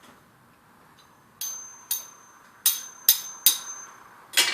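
About six sharp metallic clinks spread over three seconds, with a high, thin ringing tone sustained between them: a freshly soldered steel spur knocking against metal and ringing.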